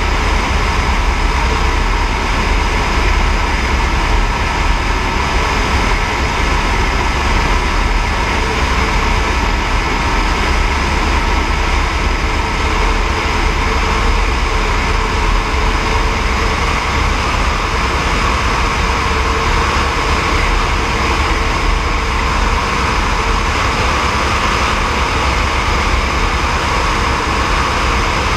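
Eurocopter AS350 B3e helicopter in steady flight: the single Arriel 2D turboshaft whining with a few high steady tones over the fast low beat of the main rotor and rushing air, unchanging in level.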